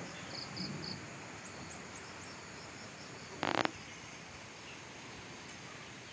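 Rural outdoor ambience with insects chirping in a series of short, evenly spaced pulses and a bird giving four quick rising chirps about two seconds in. A short, loud burst of noise a little past halfway is the loudest sound.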